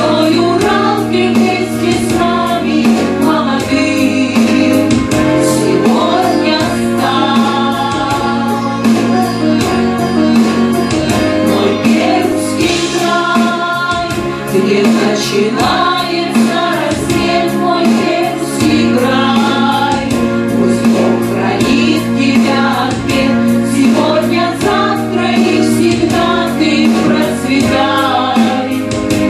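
A group of voices singing a song together, with instrumental accompaniment and a steady beat.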